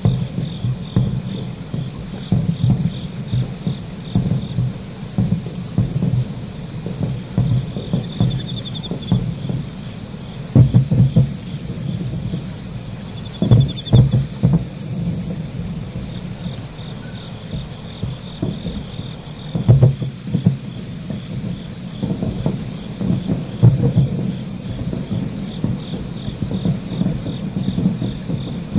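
Distant fireworks shells bursting as a run of low booms and thuds, loudest in clusters about ten, fourteen and twenty seconds in. Under them, steady high insect chirring with occasional cricket trills.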